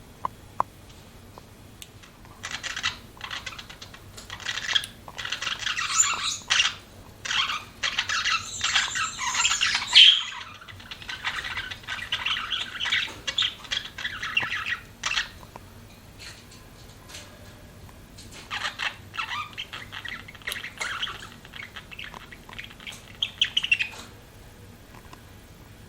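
Budgerigars chattering in long runs of rapid chirps and warbles, with sharper squawks mixed in. The chatter breaks off for a few seconds in the middle and stops a couple of seconds before the end.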